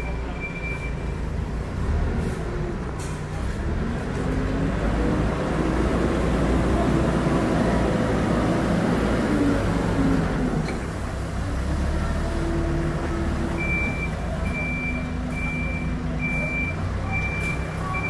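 Hidromek 102 S backhoe loader's diesel engine running, revving up and louder through the middle as the machine drives close with its loaded front bucket, then settling back. A reversing alarm beeps at the start and again from about two-thirds through, about three beeps every two seconds.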